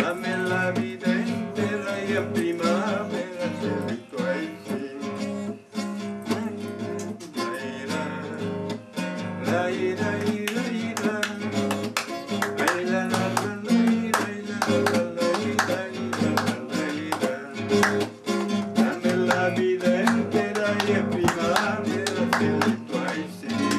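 A man singing a folk song to his own strummed and plucked accompaniment on a classical guitar with nylon strings.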